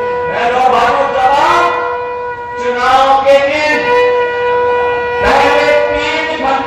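A steady, sustained feedback tone from a public-address system ringing over a man's amplified speech, dropping out briefly a little after two seconds in and then returning.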